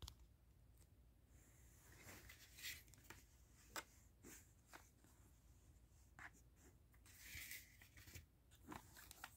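Faint handling of plastic DVD cases, some in shrink-wrap, on a fabric surface: scattered light clicks, taps and rustles as the cases are picked up, flipped over and set down.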